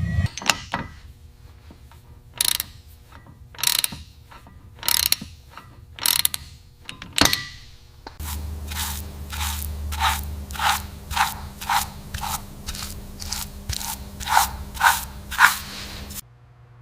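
Ratchet wrench clicking as bolts are tightened: single strokes about a second apart, then, about halfway through, a faster even run of about two strokes a second over a low steady hum.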